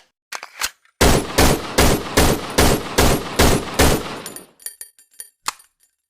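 M1911 .45 ACP pistol firing eight rapid shots, about two and a half a second, after a couple of small mechanical clicks. Then a string of small ringing metallic clinks and a single clack.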